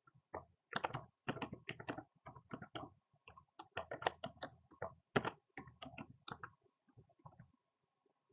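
Typing on a computer keyboard: a quick, irregular run of key clicks that stops about a second before the end.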